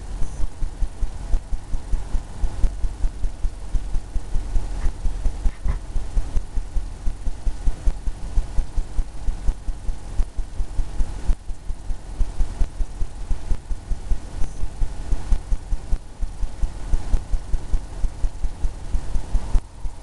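Oil-paint brush dabbing and stroking on a stretched canvas on an easel, the canvas giving a rapid, irregular run of low thumps, a few a second, as short choppy strokes build up water.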